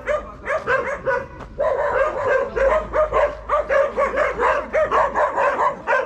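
Small dogs barking aggressively in a rapid, unbroken volley, about four barks a second, confronting a passing dog and looking for a fight.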